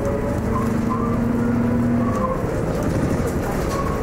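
MCW Metrobus's Cummins diesel engine running as the double-decker bus drives along, heard from inside the upper deck, with a steady hum that drops away a little over halfway through.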